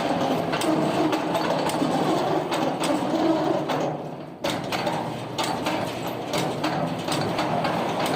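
Machinery running with irregular clicking and metallic clatter. The sound dips sharply about four seconds in, then carries on much the same.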